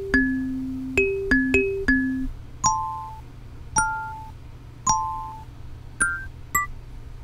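A kalimba sample played as a synth on a Synthstrom Audible Deluge, single plucked notes tapped out on the pads. A quick run of low notes comes first, then from about two and a half seconds in, higher notes about a second apart, each dying away.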